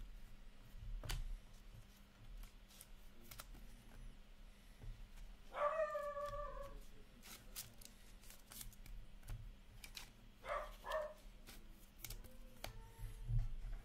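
Hockey trading cards being flipped through by hand, with soft slides and light clicks of card against card. A high-pitched whine of about a second sounds near the middle, and two brief shorter ones a few seconds later.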